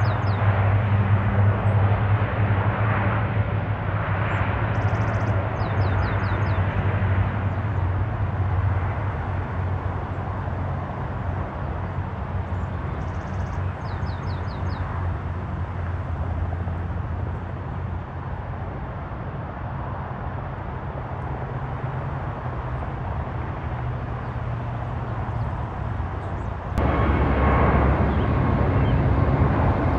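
Airplane engine noise with a steady low hum, slowly fading over the first half, with a small bird chirping a few times. Near the end the noise jumps abruptly louder.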